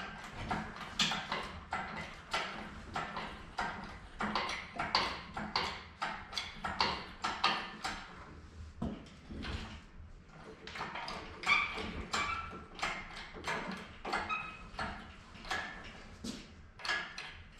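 Steel sawmill frame parts and hand tools clinking as bolts and brackets are worked on: a long run of short sharp metallic ticks, about two or three a second, some with a brief ring.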